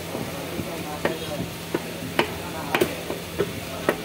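A cleaver chopping through fish on a wooden log block: about seven sharp, irregularly spaced knocks as the blade strikes the wood, over a steady background hiss and low hum.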